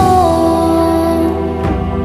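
Islamic devotional chant (a tasbih nasheed) sung by a single voice, holding one long note with a slight dip in pitch at the start and a short break near the end, over a steady low backing.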